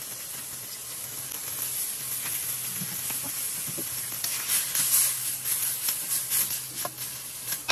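Sliced red onions and garlic sizzling in hot oil in a stainless steel wok, a steady hiss with crackling that grows louder about halfway through as they are stirred. A sharp knock near the end.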